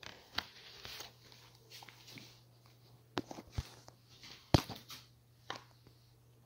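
Scattered light taps and knocks, the sharpest about four and a half seconds in, from a cat pawing at a rubber toy on a tile floor while the phone is handled, over a faint steady hum.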